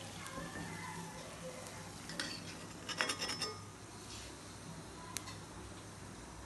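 Steel slotted skimmer clinking and scraping against an iron kadai while fried raisins are lifted out of hot oil: a few light clinks, the busiest about three seconds in.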